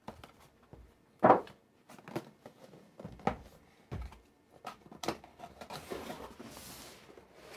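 Cardboard shipping box handled on a table: a few knocks and scrapes as it is tipped over and laid flat, the loudest about a second in and a dull thud near the middle, then rustling cardboard as the lid is lifted open.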